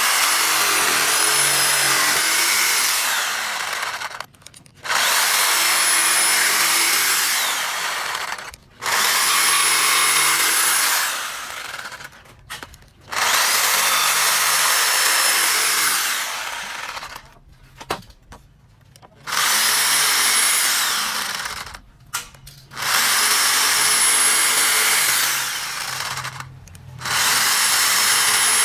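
Electric jigsaw cutting through a thick wooden plank, running in about seven spells of three to four seconds with short pauses between, its high motor whine rising as each spell begins.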